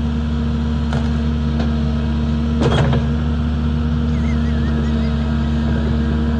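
Cat 310 mini excavator's diesel engine running at a steady speed, with two sharp knocks about one and three seconds in.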